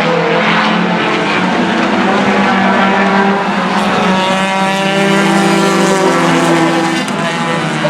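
Several four-cylinder race cars running hard together around a short oval, their engine notes rising and falling in pitch as they pass.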